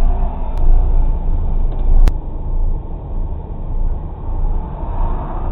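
Car engine and road noise heard from inside the car's cabin, a steady low rumble. A single sharp click about two seconds in.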